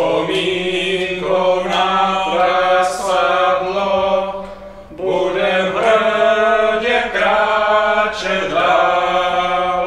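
Several men's voices singing together in a slow, chant-like tune with long held notes, in two long phrases with a short break about five seconds in.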